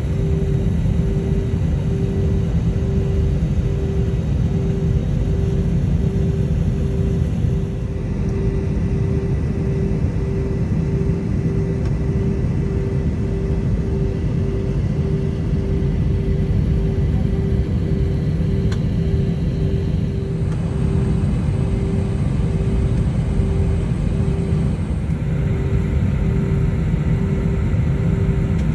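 Airliner's jet engines running at taxi power, heard inside the passenger cabin as a steady low rumble with a pulsing hum.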